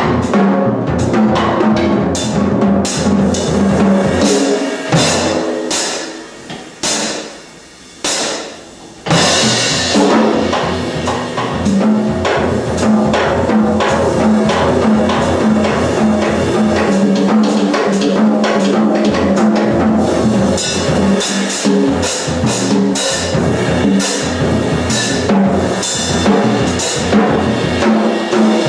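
Solo live percussion: drums struck in dense, rapid strokes. About six seconds in the playing drops to a quiet passage, then comes back loud and busy about nine seconds in.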